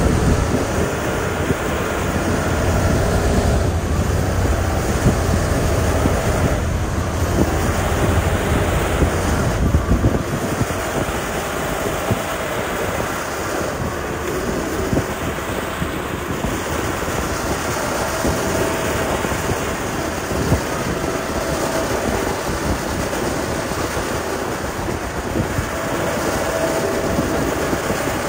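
Diesel engines of heavy road-construction machinery running steadily, a continuous mechanical rumble and clatter. The deep low rumble eases about ten seconds in.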